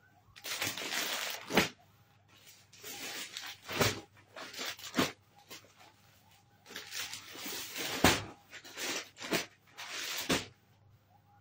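Plastic packaging rustling and crinkling as it is handled, in several bursts with sharp crackles.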